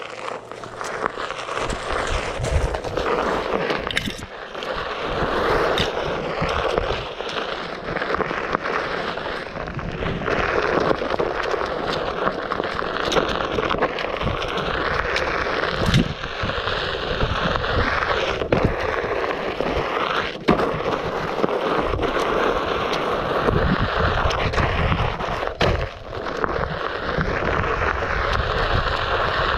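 Onewheel Pint electric board being ridden over a rough trail: the hub motor's whine rises and falls with speed over the continuous rolling crunch and rumble of the single tyre on the ground, with scattered sharp knocks from bumps.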